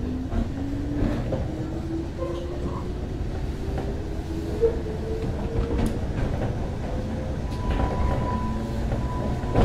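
Ride sound inside a JR West 105 series electric train motor car: steady rumble with a traction motor whine that rises gradually in pitch as the train accelerates. A few rail-joint clicks are heard.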